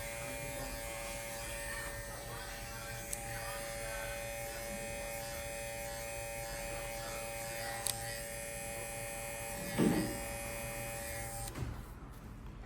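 Babyliss Pro FX electric hair clipper running with a steady buzzing whine, switched off near the end. A brief louder thump comes about ten seconds in.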